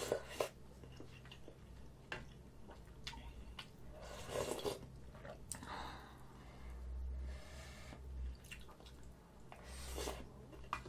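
Close-miked eating: spoonfuls of kimchi stew and rice slurped and chewed, with wet mouth sounds and a few light spoon clicks. Louder slurps come at the start, about four seconds in, and near the end.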